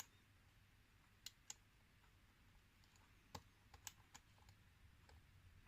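Faint, irregular metallic clicks of a hook pick working the pin stacks of an Asec euro cylinder lock held under tension, feeling at the binding fourth pin.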